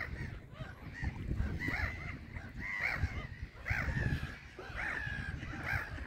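A flock of waterbirds, gulls and mallards, calling at the water's edge: short harsh cries, many overlapping, a new one about every half second, over a low rumble.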